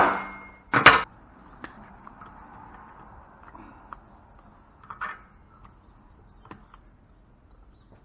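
A single hammer blow on a scrap transformer about a second in, then faint clicks and light rattling of metal parts being handled.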